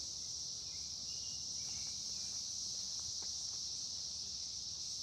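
Steady high-pitched insect chorus, with a couple of faint clicks about three seconds in.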